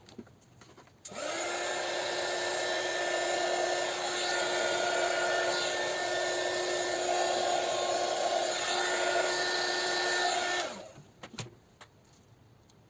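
A small electric motor whirs steadily for about ten seconds, starting and stopping abruptly, with a few clicks before and after.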